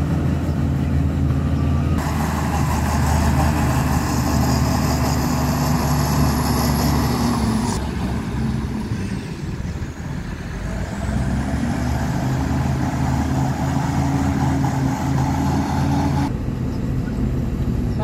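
Heavy diesel engines of earthmoving machinery running steadily with a high whine. About halfway through the engine note and whine drop away briefly, then build up again.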